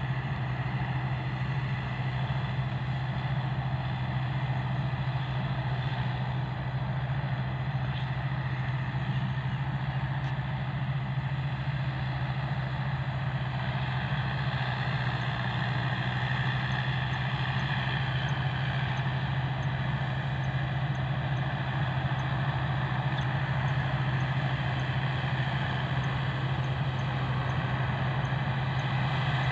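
Combine harvester working a rice field: its diesel engine gives a steady low drone that holds at one level throughout.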